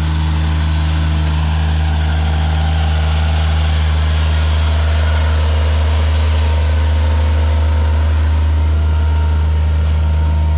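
New Holland LS140 skid steer's engine idling steadily, with a deep, unchanging hum.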